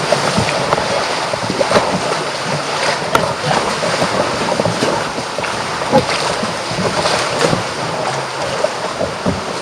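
Sea water splashing and lapping around a kayak, with wind noise on the microphone.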